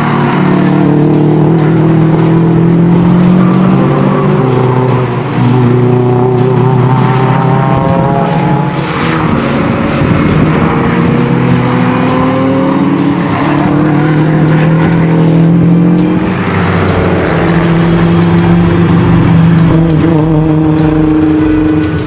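Subaru Impreza WRX STI's turbocharged flat-four boxer engine driven hard, its pitch climbing and dropping repeatedly through gear changes and lifts.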